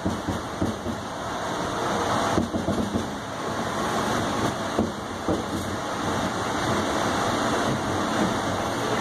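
Steady rush and rumble of a new MBTA Red Line 1900-series subway car running through the tunnel, heard from inside the car.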